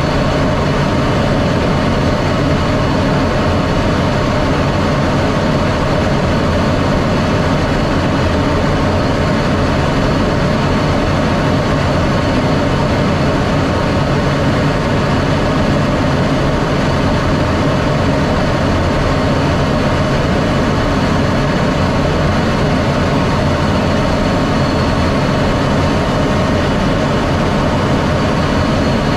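Steady jet noise of an F-16D fighter: an even, loud rush with a faint constant high whine.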